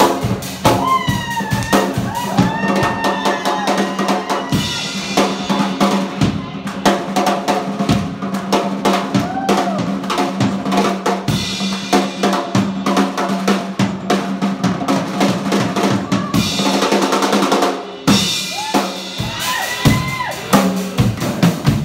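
Live band playing an instrumental passage: electric guitar lead with notes that slide up and down over a steady drum-kit beat of bass drum, snare and cymbals. Near the end a cymbal wash builds and then cuts off sharply.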